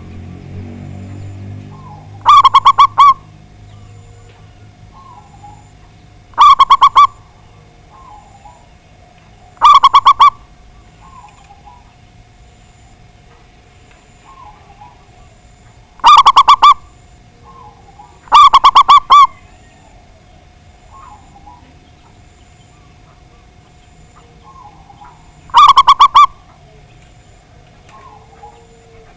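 Zebra dove (perkutut) cooing: six loud phrases of rapid, stuttering coo notes, each under a second long, a few seconds apart, with softer short notes between them.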